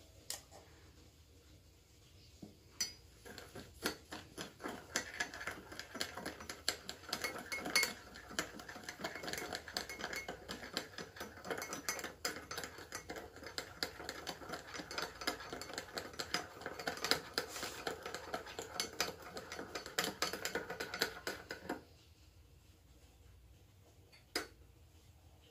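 Metal teaspoon clinking and scraping rapidly against a ceramic cup, stirring instant coffee into hot frothed milk. It starts about three seconds in and stops a few seconds before the end, with one last clink after.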